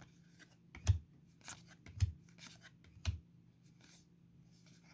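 Football trading cards being handled and flipped one by one. A run of sharp little clicks with a soft thud, about one a second over the first three seconds, with faint sliding and rustling between them and quieter handling after.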